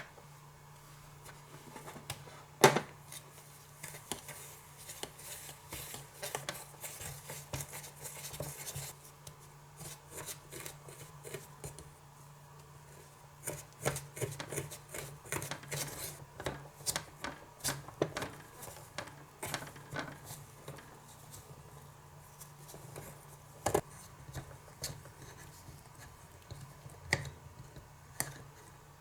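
Tiny utensils clicking, tapping and scraping against miniature dishes while Konapun candy dough is prepared. There is a sharp knock about three seconds in, a few seconds of scraping after that, and a faint steady low hum underneath.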